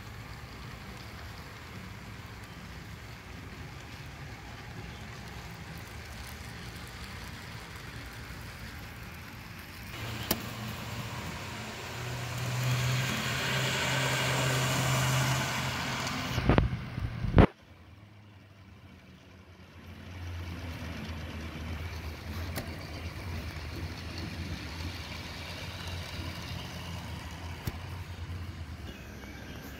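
HO scale model train of F7 A and B diesel units running on the track, the small motors and wheels on the rails giving a steady hum that grows louder as the train comes close around a curve. A couple of sharp knocks come a little past the middle, the sound then drops off suddenly, and a fainter hum picks up again a few seconds later.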